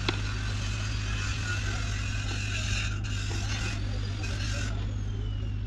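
A steady low mechanical hum, with one sharp click right at the start.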